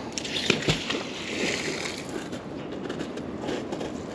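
A thrown fishing magnet splashing into the water: a deep plop under a second in, followed by a brief spray hiss. Then the rustle and soft clicks of its rope being hauled back in hand over hand with gloves.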